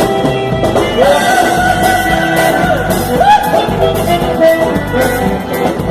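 Gaúcho band playing a vaneira: an instrumental passage between verses, with an accordion melody over a steady dance beat.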